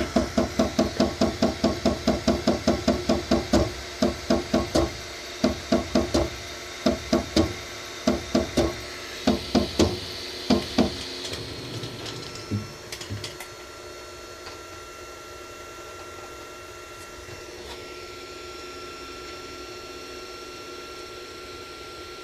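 Creality Ender 3 V3 Plus 3D printer clunking during its self-check: fast knocks at about five a second, then irregular bursts of knocks that stop about 13 seconds in, leaving a steady motor hum with a thin whine. The clunking comes from the printer failing to find the extruder head's position through a sensor whose wire is cut.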